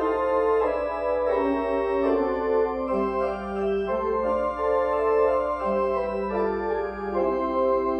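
Organ playing a slow piece in held chords, the notes changing about once a second.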